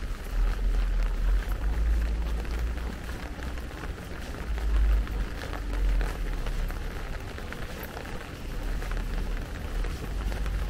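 Light rain falling on a paved walkway, with scattered small drop ticks. A low rumble underneath swells twice.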